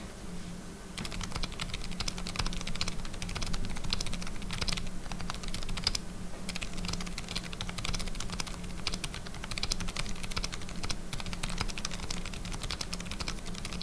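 Typing on a keyboard with Kailh Deep Sea Whale Fall tactile switches: rapid keystroke clicks begin about a second in. Nearly every key adds a jingle from the switch's metal leaf, like a small bell, which marks the tactile switch's leaf as much louder than the linear's.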